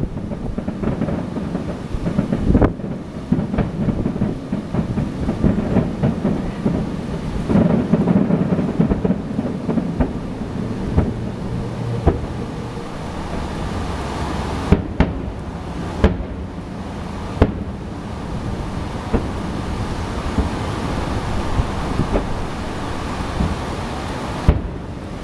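Wind buffeting the microphone in a loud, steady rumble, with fireworks bursting through it as several sharp bangs, three of them in quick succession a little past halfway.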